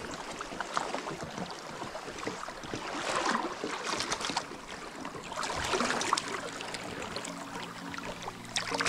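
Hooked fish splashing and thrashing at the river's surface as it is reeled in, in irregular bursts of water noise, strongest about three and six seconds in. Background music fades in near the end.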